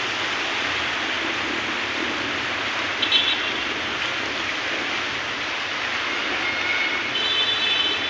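Heavy tropical rain falling steadily, an even hiss. A few short, high-pitched tones cut through it about three seconds in and again near the end.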